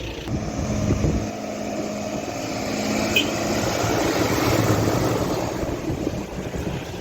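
A vehicle engine running with a steady hum, growing louder toward the middle and easing off near the end.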